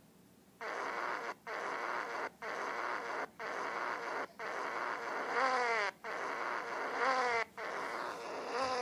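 A run of comic sound effects: rough hissing blasts about a second each, broken by short gaps, the later ones with a falling whistle-like sweep. The kind of noise a fart sound effect makes.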